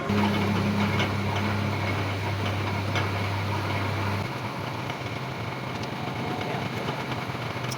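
Lathe's electric motor running with a steady mains hum that cuts off abruptly about four seconds in, over workshop noise with scattered light metallic clicks.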